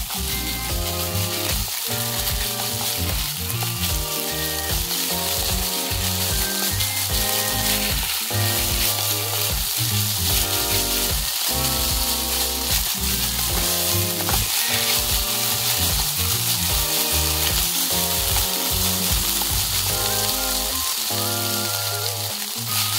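Thin slices of pork sizzling in a frying pan as they are stirred and turned with wooden chopsticks, with background music playing a steady run of notes underneath.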